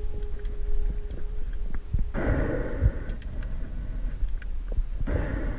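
Underwater sound picked up by a diving camera: scattered clicks over a low rumble, with a short spell of rushing water noise about two seconds in and again near the end.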